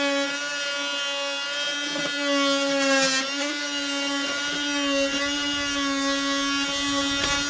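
Fein FMM250Q oscillating multitool running at a steady high buzz while its blade scrapes off old, thick undercoating, with an uneven rasping mixed into the buzz.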